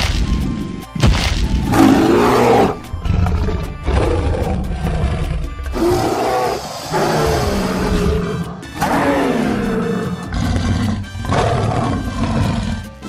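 Dinosaur roar sound effects: a series of roars and growls, each a second or two long, one after another, over background music.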